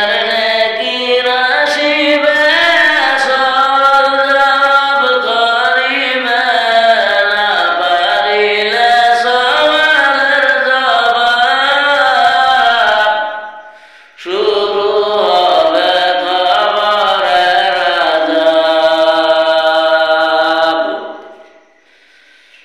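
A solo voice singing a Bengali Islamic gazal, a devotional song, in long, wavering held lines with no instruments heard. The singing breaks off briefly about 13 seconds in, then fades near the end.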